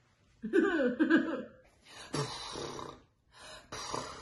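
A woman's wordless voiced sound with a wavering pitch, then two long, forceful breaths out through the mouth, each about a second long, as she loosens up to calm her nerves.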